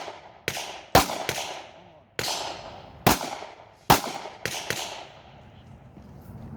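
Pistol shots from a Glock 22 Gen 5 in .40 S&W fired in quick, uneven strings: about eight sharp cracks over roughly four seconds, some in fast pairs, each with a short echoing tail, then the firing stops about five seconds in.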